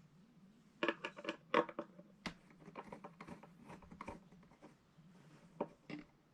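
Irregular small clicks, taps and scrapes of a speaker's plastic parts being handled and worked at while its tweeter is removed, busiest between about one and two seconds in, over a faint steady low hum.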